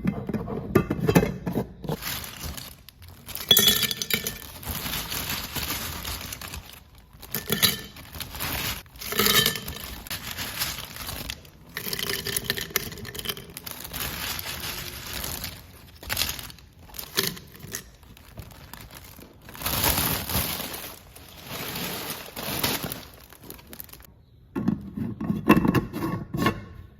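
Glass jars clinking and snacks rattling as they are poured and packed into jars, with some plastic packaging crinkling. The clatter comes in short stretches that stop abruptly.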